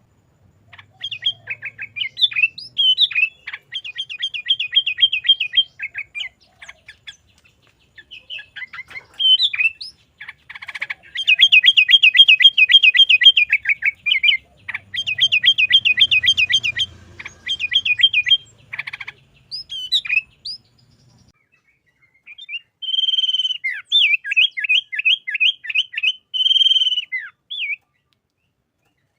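Sooty-headed bulbul (kutilang) singing loudly in the rapid 'garuda' style: bursts of quick repeated rising notes, about eight a second, each run lasting a few seconds with short gaps between phrases, and a pause about three-quarters of the way through.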